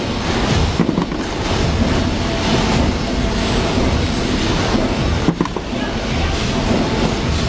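Forging hydraulic press running in a forge shop: a steady hum under dense machine noise, with a short clank about a second in and another a little past five seconds.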